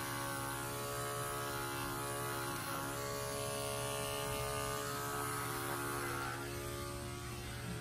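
Electric animal hair clippers running with a steady, even-pitched buzz while clipping a dog's coat.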